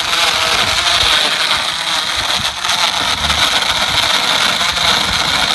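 Coolest Cooler's built-in battery-powered blender running steadily, its motor whirring as the blades churn ice with limeade and vodka into a frozen drink.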